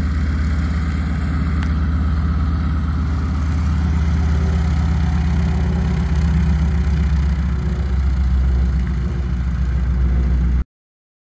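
North American T-6 Texan's Pratt & Whitney R-1340 nine-cylinder radial engine running at a low taxiing idle, steady with a fast, even pulse, and cutting off suddenly near the end.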